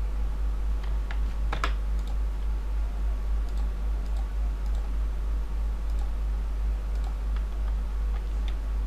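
Scattered clicks of a computer mouse and keyboard, a small cluster about one and a half seconds in, over a steady low electrical hum.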